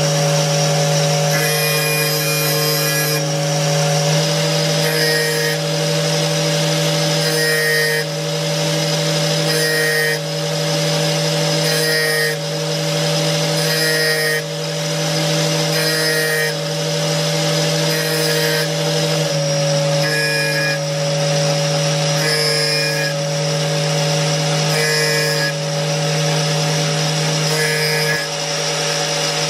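Angle grinder running steadily while the teeth of a circular saw blade are ground against its disc one at a time, a brief grinding rasp about every two seconds as each tooth meets the disc.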